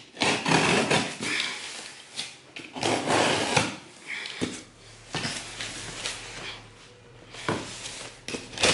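Cardboard shipping box being slit open with a utility knife: packing tape and cardboard scraping and tearing in several strokes of about a second each, with a few sharp clicks.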